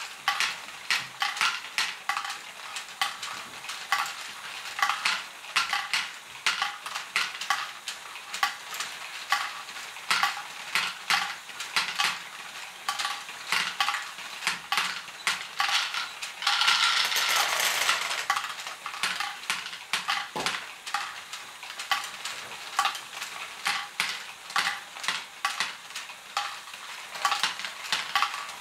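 LEGO Great Ball Contraption pump mechanisms running, plastic balls clicking and clattering as they are pushed through, a rapid, uneven stream of sharp clicks. A little past halfway a denser rattle of many balls together lasts about two seconds.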